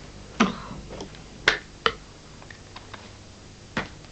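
A handful of short, sharp clicks and light knocks, about five spread across a few seconds, from a photo album and framed photographs being handled.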